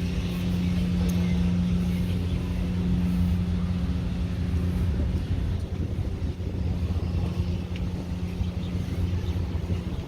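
Street traffic: a motor vehicle's engine gives a steady low hum for about the first half, then gives way to a rougher rumble of passing traffic.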